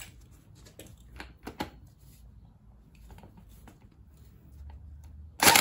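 Irregular small metal clicks and taps of a socket wrench tightening the clutch nut on a GY6 scooter's CVT transmission, back over a freshly fitted contra spring. Near the end comes a loud, noisy burst about half a second long.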